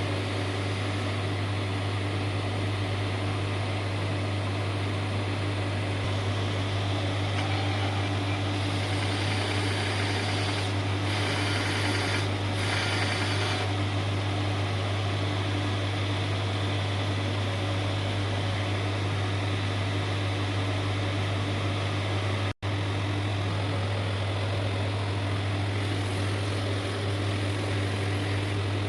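A power tool's electric motor running steadily with a constant low hum, its pitch unchanging; the sound drops out for an instant about three quarters of the way through.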